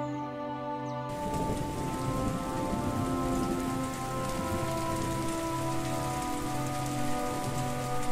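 Steady rain falling, starting suddenly about a second in, over soft music with long held notes.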